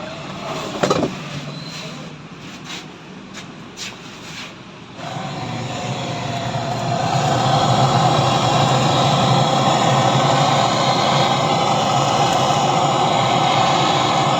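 A few sharp knocks, then about five seconds in a steady roaring hiss starts, grows louder, and holds: a gas torch heating a seized washing-machine drum to free it from its shaft.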